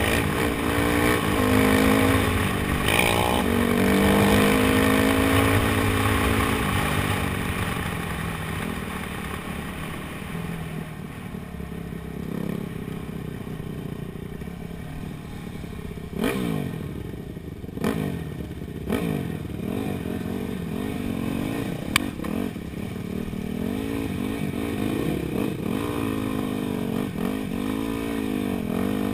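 Dirt bike engine being ridden, its pitch rising and falling with the throttle: hard acceleration at first, easing off in the middle, then several short bursts of throttle and more revving near the end. A single sharp click about two-thirds of the way through.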